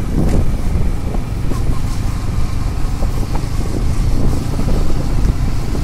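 Wind buffeting the microphone on a moving motorbike, a steady low rumble with road and engine noise beneath it.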